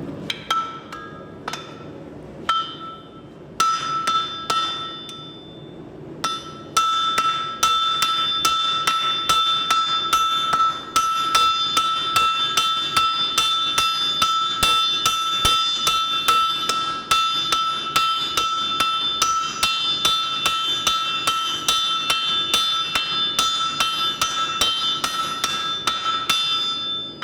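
Hand blows ringing on hot axe steel over an anvil, struck with axes used as hammers, while the axe blade is thinned and drawn out. A few separate blows come first. From about seven seconds in they settle into a steady pounding of about three strikes a second, with a bright anvil ring throughout.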